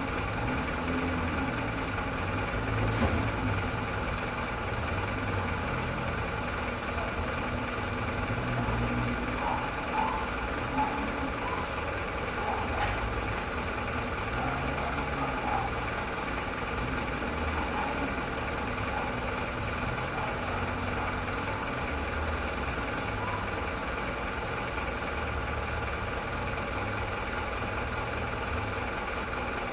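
Truck engine running steadily at constant speed: an even, unchanging low drone.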